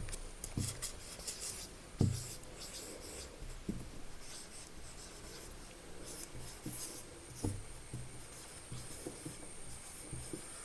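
Someone writing by hand: short scratching strokes of a pen or marker, with a few light taps between them.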